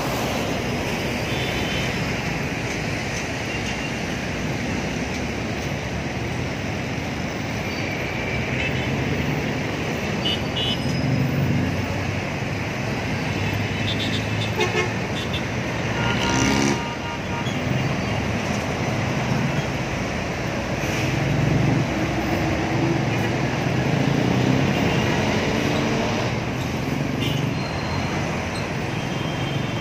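Steady roadway traffic noise from slow-moving cars, jeepneys, buses and trucks, engines running underneath, with a vehicle horn sounding briefly about halfway through.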